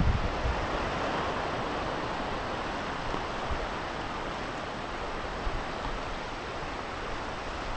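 Steady hiss of small waves washing on a rocky, pebbly shore, with light wind buffeting the microphone now and then.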